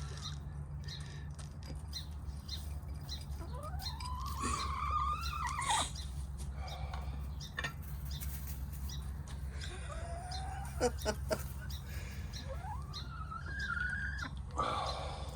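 Chickens calling: three drawn-out calls that rise and then fall in pitch, with a few sharp taps between them over a steady low hum.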